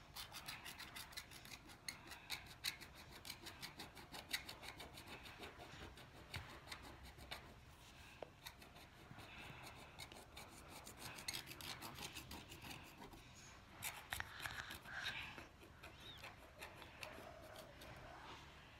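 Wooden stylus scratching quick back-and-forth hatching strokes into black-coated rainbow scratch-art paper, a faint dry rasping made of many short strokes in a row.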